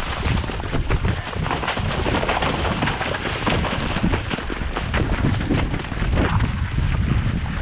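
Wind rumbling and buffeting on the microphone of a horseback camera, over the irregular splashing hoofbeats of horses moving through waterlogged, flooded grass.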